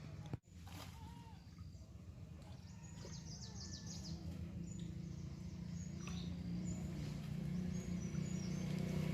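Outdoor ambience: small birds chirping in short high notes over a steady low rumble that slowly grows louder, with a brief dropout about half a second in.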